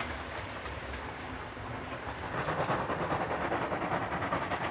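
Steam locomotive 50 307 hauling a freight train at speed, its wheels clattering over the rail joints under a steady rumble that grows louder about two seconds in.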